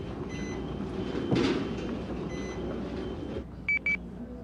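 A low rumbling background drone with a faint electronic tone repeating about every two seconds, and a swell of hiss about a second in. Near the end a mobile phone gives two short, high beeps in quick succession.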